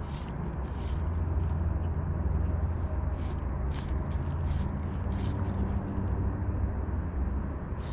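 Wind buffeting the microphone as a steady low rumble, with short faint high swishes several times a second.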